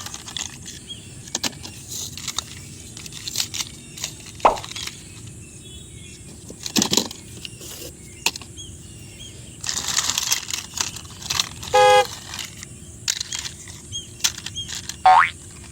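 Plastic toy vehicles being handled, with scattered clicks, knocks and rattles, a short electronic toy horn tone about twelve seconds in and a brief rising tone near the end.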